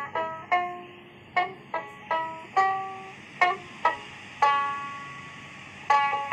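Background music on a plucked string instrument: single notes picked one at a time, each ringing and dying away, then quicker repeated plucking near the end.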